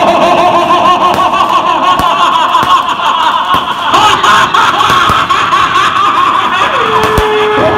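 Loud crowd noise: many voices at once, without a pause.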